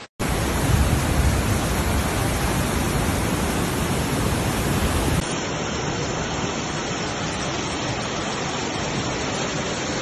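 Loud, steady rushing of floodwater. In the first half there is a heavier low rumble. About five seconds in it changes abruptly to the rush of a muddy flood torrent pouring down a street.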